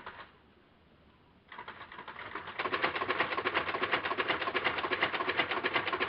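Camera shutter firing in a rapid continuous burst, a fast even rattle of many clicks a second. A brief run right at the start, then a longer run from about a second and a half in that gets louder a second later.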